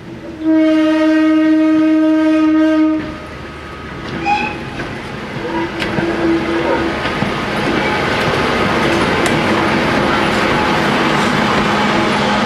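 Sentinel 0-6-0DH diesel shunter PBA 39 sounding its horn once, one steady note held for about two and a half seconds, then its diesel engine and wheels on the rails growing louder as it approaches and running steadily near the end.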